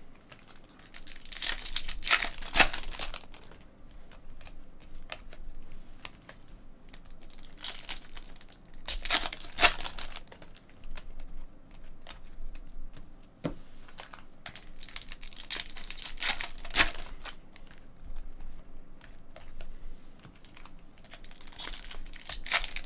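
Foil trading-card pack wrappers crinkling and tearing open, mixed with stiff chrome cards being slid and flipped in the hands. The rustling comes in spells of a second or two, several seconds apart, with quieter handling between.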